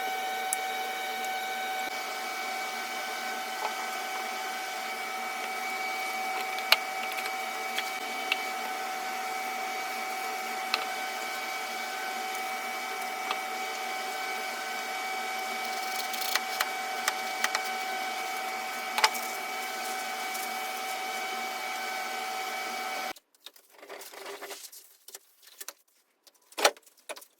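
A small electric motor runs with a steady, even-pitched whine and hiss, with a few sharp clicks over it, then cuts off abruptly about 23 seconds in. Light scattered clicks and taps follow.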